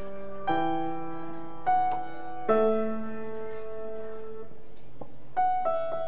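Grand piano played solo: slow chords struck about a second apart and left to ring, a short lull a little past the middle, then a quicker run of notes near the end.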